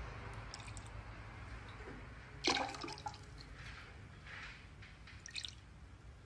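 Faint dripping and splashing of liquid in a glass, with a sharp light knock about two and a half seconds in and a few softer clicks after it.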